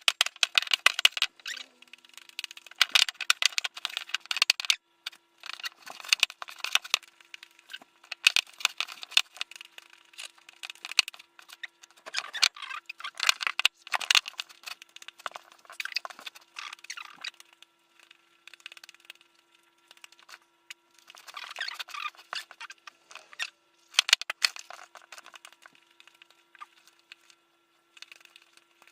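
Sticky fluffy slime made of shaving cream and white glue being squeezed and kneaded by hand: irregular wet crackling, popping and squelching in bursts of a few seconds, with short pauses between.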